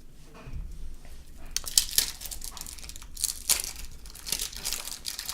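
Crinkling and tearing of a baseball card pack wrapper being opened, with sharp crackles, starting about one and a half seconds in.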